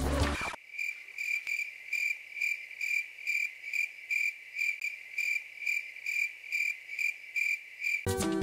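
Crickets chirping in an even, pulsing rhythm of about three chirps a second. Background music cuts out about half a second in and comes back just before the end.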